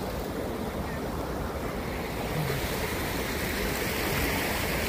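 Steady rush of river water pouring over a weir, growing a little louder about halfway through, with a low rumble of wind on the microphone.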